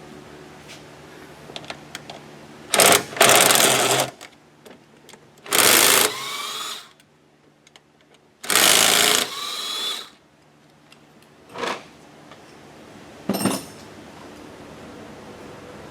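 A power ratchet runs in three bursts of about a second each, with the pitch shifting as it spins, backing out the throttle body's 10 mm head bolts. Two shorter bursts follow near the end.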